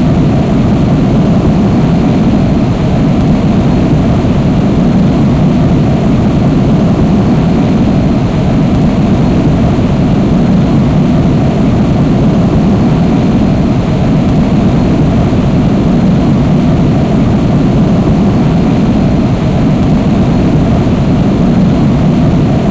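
Jumbo jet's engines running with a steady, loud low rumble that does not rise or fall.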